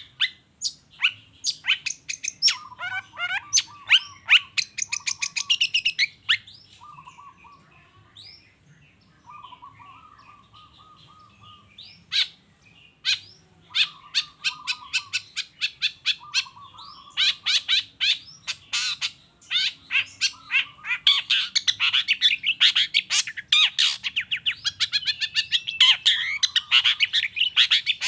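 Long-tailed shrike (cendet) in full song: a fast, varied run of sharp clicking notes and chatter with short lower warbling phrases. It thins to scattered notes about a third of the way in, then builds to a dense, continuous chatter in the last third.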